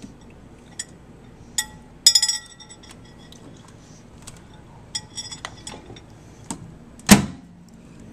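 Glass or ceramic dishware clinking: scattered sharp clinks with a brief ring, a quick cluster about two seconds in, several more around five seconds, and a heavier, louder knock near seven seconds.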